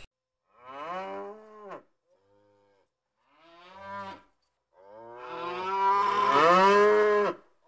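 Cattle mooing: three shorter moos, one of them faint, then a long, loud moo in the second half that falls in pitch as it ends.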